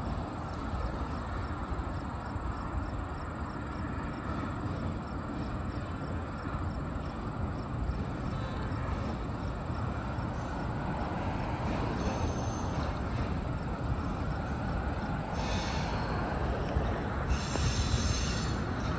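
Diesel-hauled passenger train of the Hobo Railroad, led by locomotive 958, approaching: a steady rumble that slowly grows louder, with brief high wheel squeals in the last few seconds.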